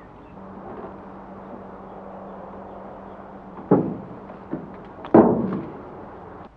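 A car's hood being shut: a thump a little past halfway, then a loud metallic slam near the end as the hood comes down and latches.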